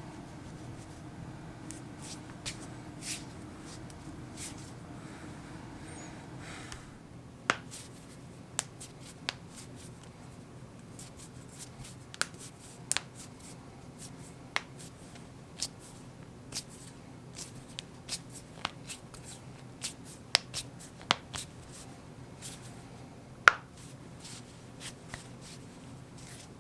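Knuckles cracking: a long string of sharp single pops, spaced irregularly a second or so apart. They are few and faint at first, come more often and louder from about seven seconds in, and the loudest is near the end.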